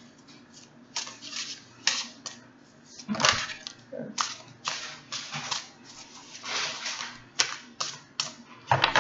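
Tarot cards being shuffled and handled on a table: irregular rustles and taps, with a sharper click about seven seconds in.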